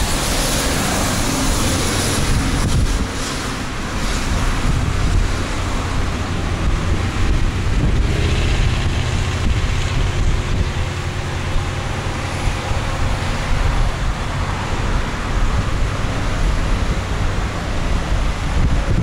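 Heavy wind rushing over the microphone, with a faint low drone from the four turboprop engines of an approaching C-130A Hercules.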